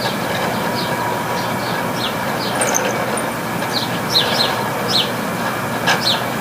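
Room air conditioner running with a steady rushing drone and faint hums. Irregular short, high, falling squeaks sound over it. The unit is failing, with its compressor in overload and its fan blades sloshing through water.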